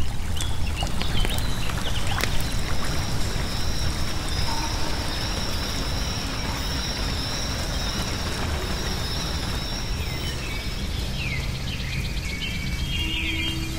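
Designed nature ambience: steady rushing water, with a thin high steady drone above it and birds chirping now and then, more busily near the end. Faint low steady tones come in near the end.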